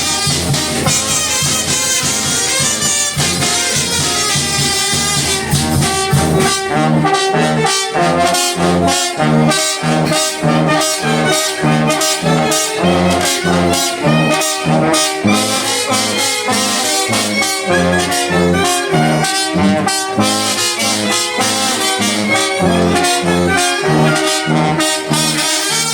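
Mexican banda de viento playing a huapango medley: trumpets and trombones carry the melody over a brass bass line. From about six seconds in, the bass plays short, regular notes.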